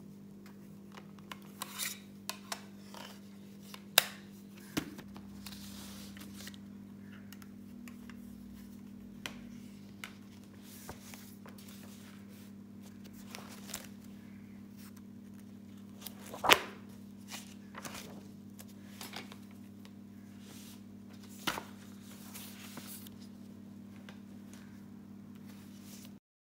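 Paper sheets and a spiral notebook being handled on a desk: rustling and brushing of paper, with scattered sharp taps and knocks of things set down, the loudest about 4 and 16 seconds in. A steady low hum runs underneath.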